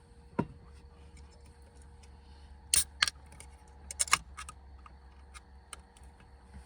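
A soft thud, then several sharp clicks and knocks, the loudest coming in two quick pairs midway, over a low steady hum.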